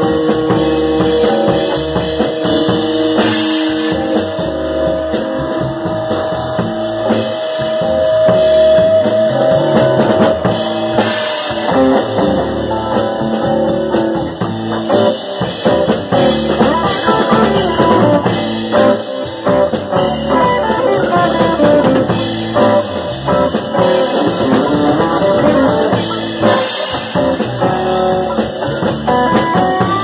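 Live band playing: electric guitars over a drum kit, with a long held note in the first third.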